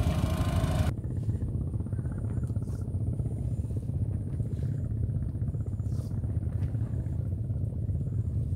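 An engine running steadily, a low rumble with a fast, even pulsing. A broad hiss over it cuts off about a second in, and a few faint short high-pitched chirps come through later.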